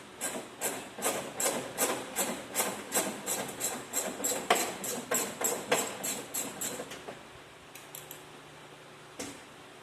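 Hand tool worked in quick regular strokes, about two to three a second, metal clicking on each stroke, as a mechanic undoes fasteners on a turbocharger removal; the strokes stop about seven seconds in, with one more near the end.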